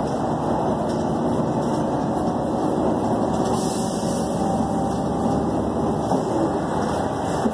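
Steady drone of a moving articulated city bus heard from inside the passenger cabin: engine and road noise running evenly.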